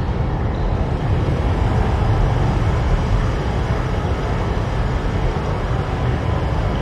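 Ambience from inside a cave with a fierce storm raging outside: a steady, deep rumble of storm wind and ocean waves with no break.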